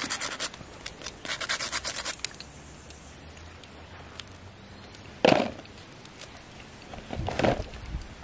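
Knife blade scraping the charred skin off a roasted banana. It comes in two runs of quick rasping strokes in the first couple of seconds, then two louder short bumps, about five seconds and seven and a half seconds in.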